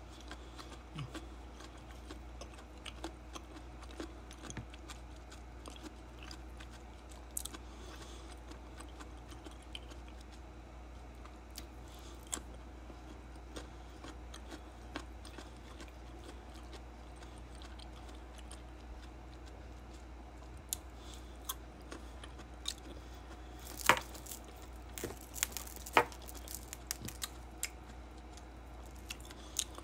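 A person chewing slices of mango close to the microphone: soft wet chewing with scattered small clicks and smacks, and two louder smacks toward the end.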